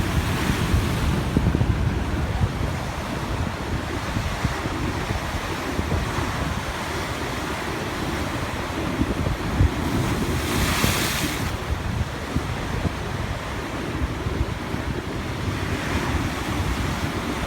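Sea waves washing onto the shore with strong wind buffeting the microphone. A wave breaks and surges in more loudly about ten seconds in, and a fainter one comes near the end.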